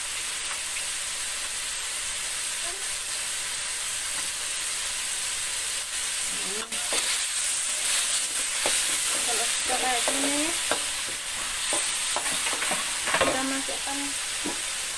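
Spice paste sizzling as it fries in oil in a wok, a steady hiss. From about halfway through, a metal spatula stirs and scrapes it around the pan.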